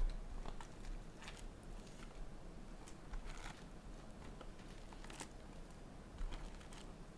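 Faint crinkling and small sharp crackles of foil trading-card pack wrappers being torn open and the cards handled, a few irregular crackles a second or so apart.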